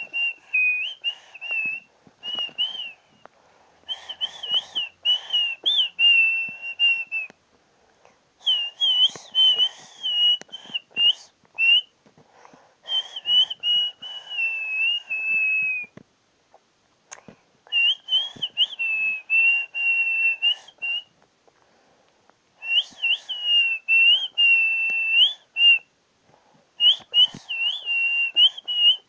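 A person doing artistic mouth whistling: high, warbling melodic phrases of a few seconds each, separated by short pauses, most settling onto a held, slightly lower note at the end.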